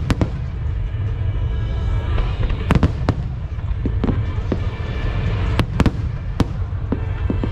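Fireworks bursting overhead: a run of sharp bangs, several in quick succession about three seconds in and again about six seconds in, over a steady low rumble.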